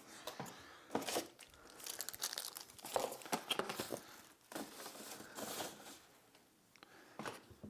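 Packaging for a speaker's accessories being handled and unwrapped: irregular rustling and crackling in several separate bouts.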